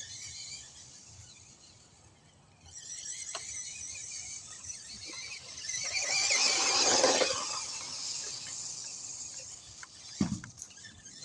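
Electric motor and gears of a toy RC truck whining as it drives, rising to its loudest as it runs close by and then fading. A low knock comes near the end.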